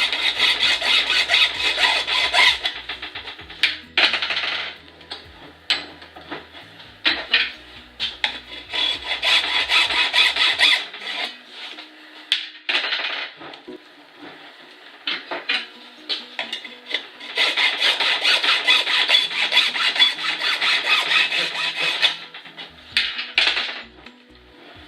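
Hand saw cutting through a pipe in quick back-and-forth scraping strokes, along a line guided by an O-ring clamped around the pipe. The sawing comes in several spells with short pauses between them.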